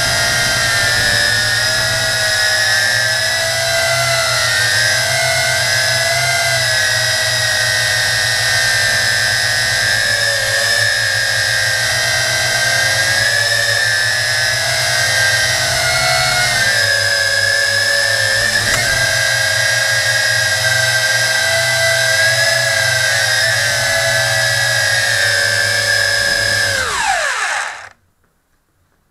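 JJRC Tarantula toy quadcopter's motors and propellers whining in flight, heard through the camera mounted on the drone. The pitch wavers up and down with throttle, then drops steeply and stops near the end as the motors spin down.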